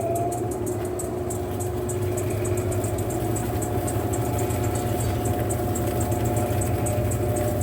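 Mueller Popmatic 8 kg washing machine running mid-cycle, its motor humming steadily. The pitch rises a little in the first moment and then holds even.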